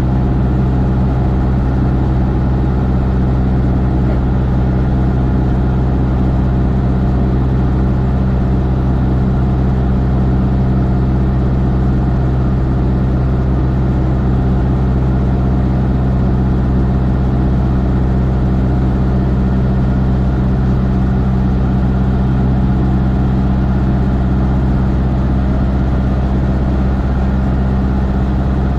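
Cessna light aircraft's piston engine and propeller running steadily in flight: an even, low hum that holds one pitch throughout.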